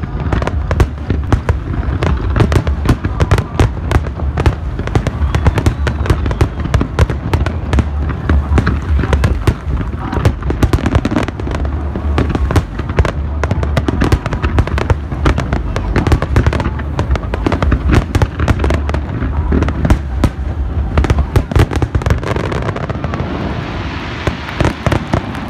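Aerial fireworks display: a dense, continuous barrage of shells bursting in rapid succession, many sharp bangs a second over a deep, steady rumble.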